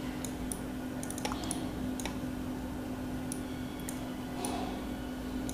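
About a dozen light, irregularly spaced clicks over a steady low hum, heard while a diagram is being drawn.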